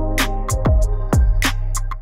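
Background music with a steady beat: low drum hits and sharp ticks over held tones.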